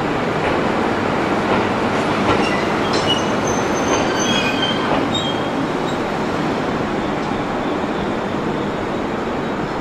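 A train rolling along the track with steady rail and wheel noise. Between about three and five seconds in there are several brief high-pitched squeals from the wheels or brakes, and the noise eases off slightly toward the end.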